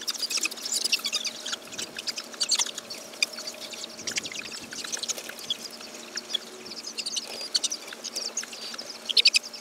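A flock of young chickens peeping and chirping, many short high calls overlapping, with a louder cluster of chirps near the end.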